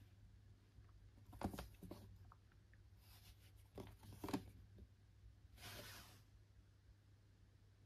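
Faint handling noise of a plastic VHS clamshell case being turned over in the hands: soft clicks about one and a half seconds in and again around four seconds, and a brief rustle near six seconds.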